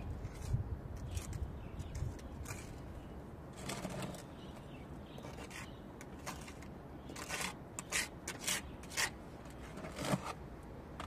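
Wet mortar being scraped from a plastic bowl with a small trowel and spread into holes in a wall: a string of short scrapes, coming thick and fast in the second half. A low rumble in the first second or so.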